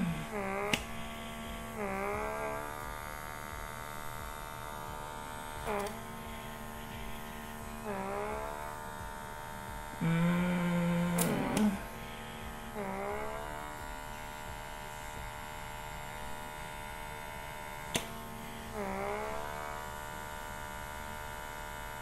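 Small battery-powered pore suction vacuum (blackhead remover) running with a steady electric hum. Several times its pitch briefly sags and recovers as the nozzle grips and releases the skin of the nose, with a louder stretch about halfway through.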